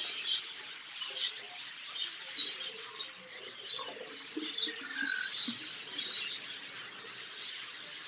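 Flock of budgerigars chattering, many short high chirps overlapping one another.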